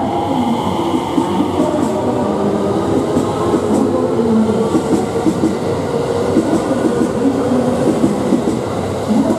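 JR West 225 series electric train pulling out and accelerating past at close range: the motor whine rises in pitch over the first few seconds above a heavy rolling rumble. The wheels clatter over rail joints.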